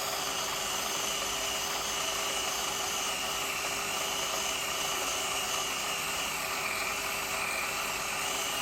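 Inelco Ultima TIG tungsten grinder running with a steady high whine while a tungsten electrode is turned in its grinding hole and ground to a point.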